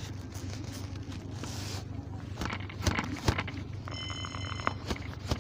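Steady low hum of a motor, with a few sharp knocks around the middle and a short, steady high-pitched tone about four seconds in.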